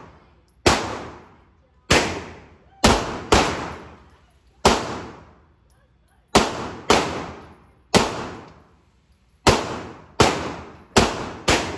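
Silver pistol fired as a string of about a dozen single shots at uneven spacing, some in quick pairs. Each sharp crack is followed by a long echo in the enclosed indoor range.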